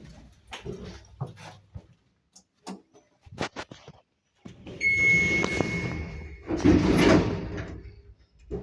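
MLZ passenger lift's automatic sliding doors working: a run of clicks and knocks from the door mechanism, then a loud sliding rush of the doors, with a brief steady high tone.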